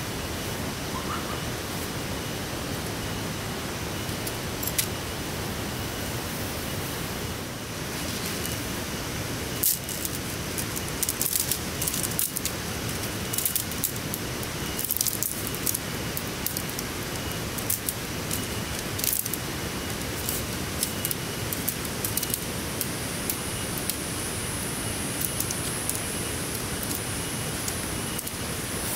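Steady hiss of heavy rain with scattered sharp ticks. A thin high-pitched whine joins about three-quarters of the way through.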